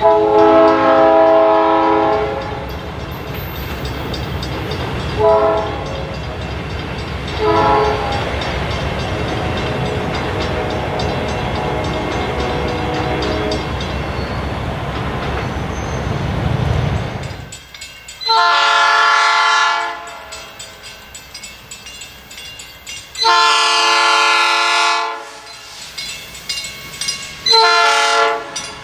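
South Shore Line electric commuter train sounding its multi-note chord horn, one long blast then two short ones, over the steady rumble of the train running on the rails. Then a second train approaches blowing two long blasts and a short one, with another beginning at the end: the long-long-short-long warning for a grade crossing.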